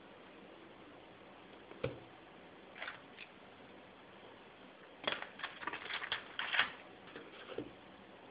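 Drawing instruments handled on a sheet of paper: a single sharp knock, a couple of short scratchy pencil strokes, then a run of clicks and scrapes as a plastic set square is laid down and positioned.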